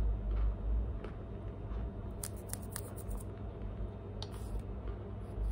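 Packed cornstarch chunks crackling and clicking as fingers with long nails pinch through the pile and break a piece off, in two short crisp clusters over a low steady hum.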